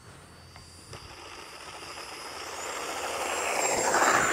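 FMS Rafale 64 mm electric ducted-fan RC jet making a low pass: a high fan whine and a rush of air grow louder as it approaches. The sound is loudest as it passes close, about four seconds in.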